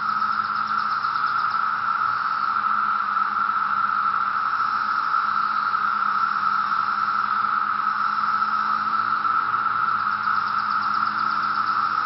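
Massed chorus of thousands of 17-year periodical cicadas: a steady, unbroken drone held at one pitch, unbelievably loud.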